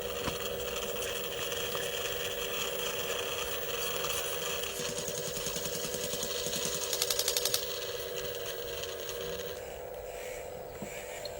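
Radio-controlled micro excavator's hydraulic pump running with a steady whine. A quick burst of rapid ticking comes about seven seconds in, and the whine cuts out just under ten seconds in.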